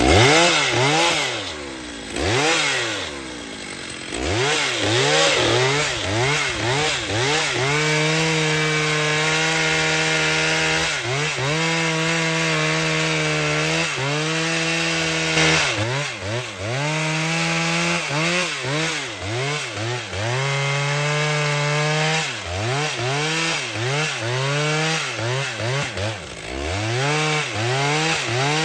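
Two-stroke chainsaw cutting wood. Its engine revs up and down repeatedly, then holds steady under load for a few seconds at a time, with brief dips and rises in pitch between the cuts.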